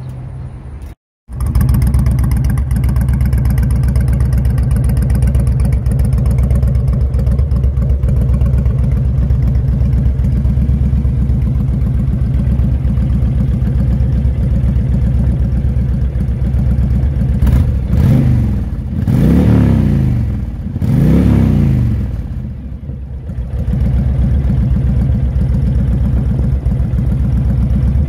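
2010 Honda Fury's 1312 cc V-twin idling through an aftermarket Cobra exhaust, blipped three times about two-thirds of the way through, each rev rising and falling back to idle.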